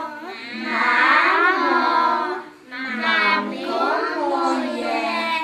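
A group of young children singing a song together, in two phrases with a short breath-break a little past halfway.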